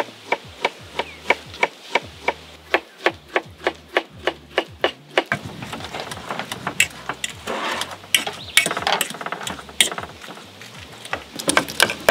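Knife chopping bananas on a wooden cutting board: a steady run of sharp taps, about three to four a second, giving way about halfway through to rougher, uneven scraping and tapping.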